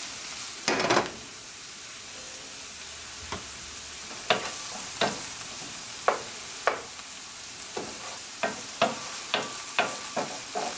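Green onions, garlic and ginger sizzling in sesame and grapeseed oil in a stainless steel skillet, with a wooden spoon knocking and scraping against the pan as it stirs. The knocks come more often in the last few seconds.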